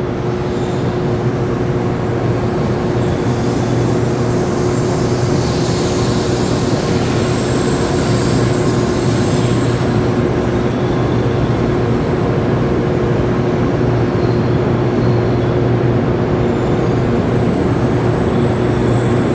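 N700-series Shinkansen train rolling slowly alongside the platform and drawing to a stop: steady running noise with a constant hum.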